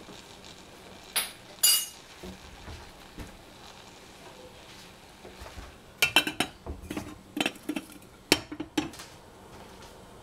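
Stainless-steel saucepan lid clinking and clanking against a stainless saucepan as it is handled and set on. Two ringing metal clinks come about a second in. A run of clanks and rattles follows from about six to nine seconds in as the lid is put on the pan.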